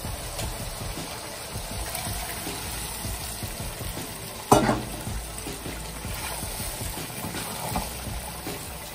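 Onion-tomato masala and turnip chunks sizzling in a wok while being stirred with a wooden spoon, with one sharp knock about halfway through.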